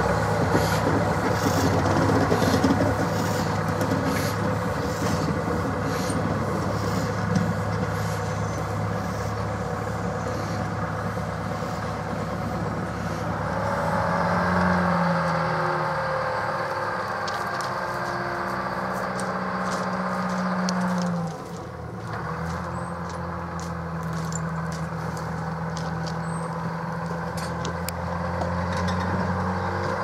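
NZR Tr-class diesel shunting locomotive running as it moves slowly along the track, with a steady engine note. The engine works harder for several seconds past the middle, cuts back sharply about two-thirds of the way through, then settles again. Light clicks and rattles come from the running gear and the coupled rail crane.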